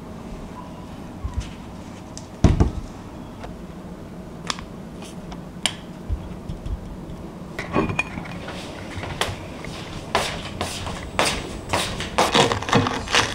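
A metal spoon clinks and scrapes against a ceramic plate as ice cream is served, with a sharp knock about two and a half seconds in and a quicker run of dish clatter near the end, over a faint steady hum.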